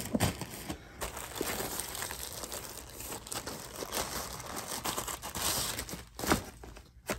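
Plastic clothing bag crinkling as it is opened and rummaged through, with a louder rustle about six seconds in as a garment is pulled out.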